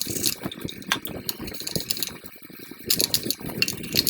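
Water splashing and sloshing in a pot of hot water, with light clattering, in irregular bursts.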